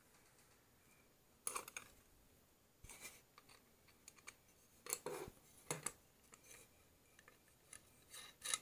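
Small metal clicks and scrapes of a nut being turned by hand onto a threaded steel rod that pokes through a wooden board, coming in short separate bursts every second or so with quiet between.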